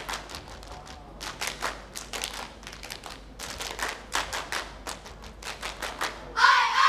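Hand claps and slaps on the body from a row of kneeling dancers, in quick, uneven volleys. A group of voices calls out near the end.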